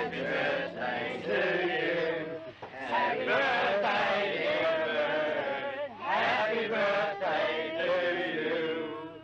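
A group of voices singing or chanting together, held notes overlapping throughout.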